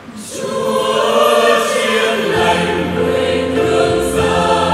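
Mixed choir of women's and men's voices singing a hymn with electronic keyboard accompaniment; the voices come in just after the start and the sound swells.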